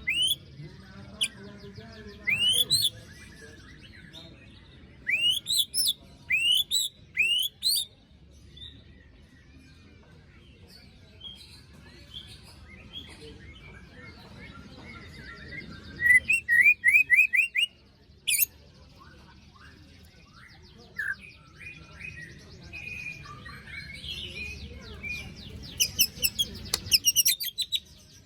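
White-rumped shama (murai batu) singing: loud bursts of rising whistled notes mixed with harsh rasping 'besetan' calls, with quick runs of repeated notes in the middle and near the end.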